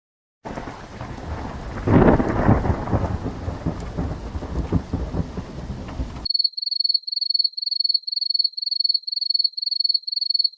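Thunderstorm sound effect: rain hiss under a rolling thunder rumble that swells loudest about two seconds in, then cuts off abruptly. It is followed by a run of short electronic beeps at one high pitch, about three a second.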